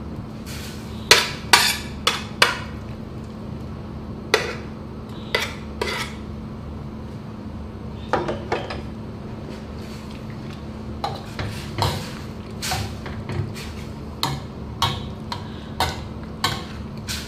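Metal utensils clinking and scraping against a stainless-steel wok and a metal tray while noodles in broth are stirred: irregular sharp clinks, about one a second, some in quick runs of two or three, over a steady low hum.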